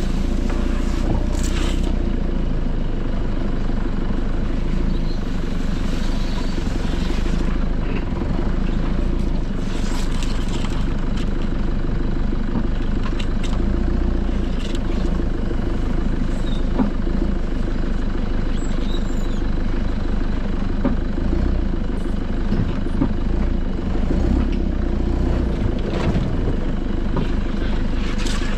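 Nissan Patrol Y61 4x4's engine running steadily while driving slowly off-road. Branches brush and scrape along the bodywork a few times.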